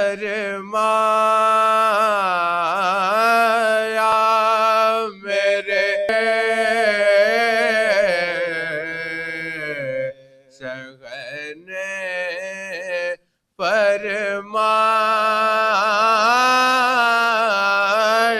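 Men's voices reciting a marsiya, an Urdu elegy, sung unaccompanied in long held, wavering notes, with a reciter at the microphone and others joining in. The singing breaks off briefly about ten and thirteen seconds in.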